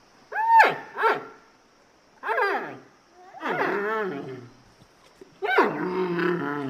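Panda calling five times. Two short yelping barks come first, then three longer wavering calls that slide down in pitch, the last one the longest.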